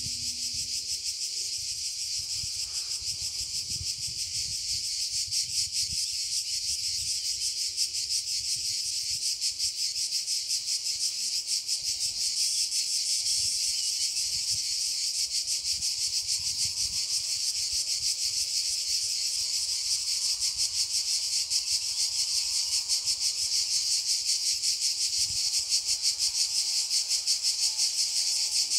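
A loud chorus of insects droning and pulsing fast, steady throughout.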